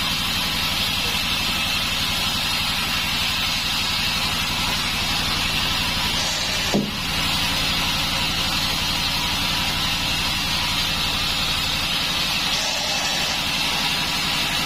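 Band sawmill running steadily: a low, even pulsing under a constant hiss. A single short knock comes about seven seconds in.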